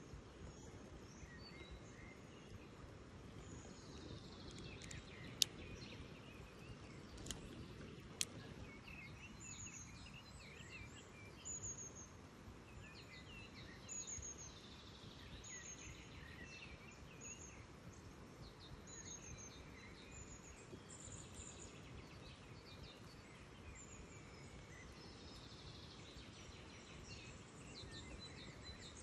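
Birds chirping and singing in short high phrases over a steady low hiss of light rain and water. Three sharp clicks come about five, seven and eight seconds in.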